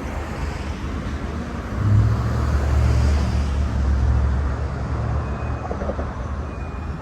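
Street traffic: a motor vehicle passes close by, its low engine rumble and tyre noise swelling about two seconds in and fading over the next few seconds.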